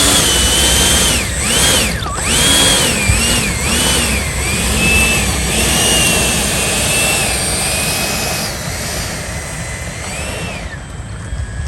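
Electric ducted fans of a Freewing Yak-130 RC jet model whining loudly over a rushing airflow noise. The pitch rises and falls repeatedly, then the whine stops near the end.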